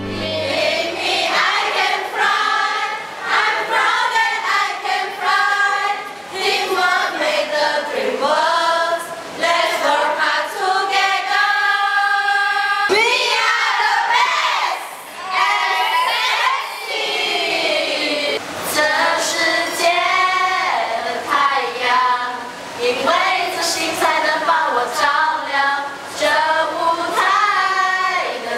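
A group of young female voices singing together, choir-style.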